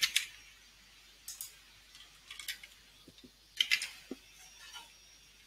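Computer keyboard and mouse clicks while editing code: a few short clicks in small irregular clusters, with low room hush between.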